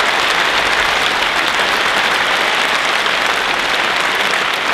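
Audience applauding and cheering steadily in a large hall.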